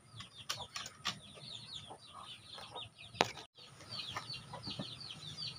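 Chicks peeping: a steady stream of short, high, falling peeps, several a second. A few sharp clicks from the wooden lamp board being handled come through, the loudest a little past three seconds in.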